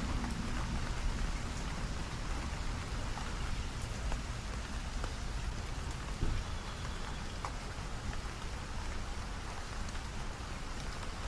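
Steady rain falling, with scattered individual drops standing out. A low rumble fades away in the first second.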